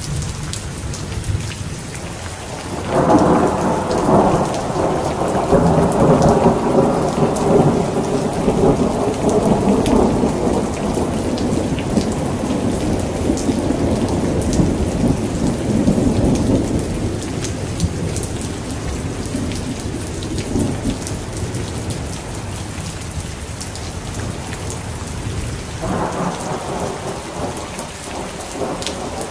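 Heavy rain falling steadily, with a long roll of thunder that breaks about three seconds in, rumbles on for some fifteen seconds and fades away. Another peal of thunder starts near the end.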